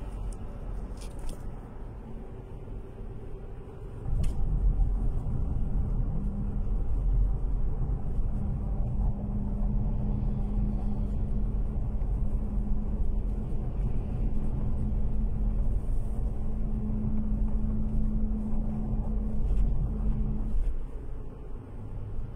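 Low engine and road rumble inside a moving car's cabin. It grows suddenly louder about four seconds in, holds a steady drone with a humming tone, and eases slightly near the end.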